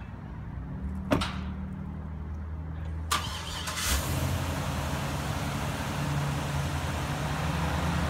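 2010 GMC 3500 HD's 6.0-litre Vortec V8 gas engine running at low speed as the truck pulls slowly forward. There is a sharp click about a second in and a short burst of noise around three seconds, after which a steady hiss rises under the engine.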